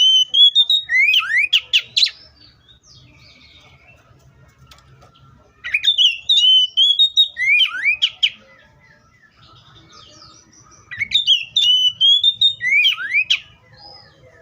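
Oriental magpie-robin singing: three phrases of loud whistled notes and quick rising sweeps, each a couple of seconds long, with pauses of a few seconds between them.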